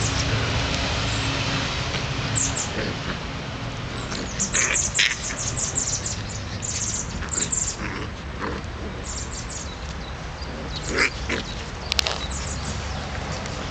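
Irish terrier puppies play-fighting, giving short grunts, growls and yips in scattered bursts as they wrestle.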